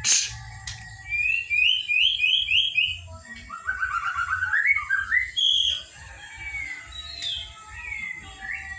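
A juvenile white-rumped shama (murai batu) at the trotol stage singing: a run of about five quick rising whistled notes, then a lower run of rising notes, then scattered varied phrases. A sharp knock right at the start.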